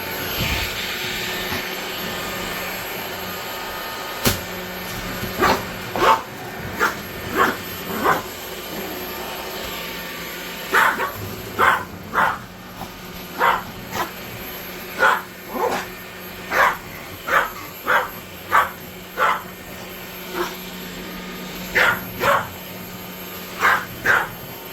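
Cordless stick vacuum cleaner running with a steady hum, while a dog barks over it in about twenty short, sharp barks at irregular intervals.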